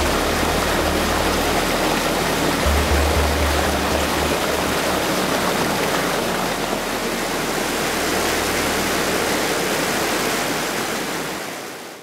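Steady rushing of white water pouring over rocks in a waterfall cascade, with low music notes underneath for the first few seconds. The sound fades out near the end.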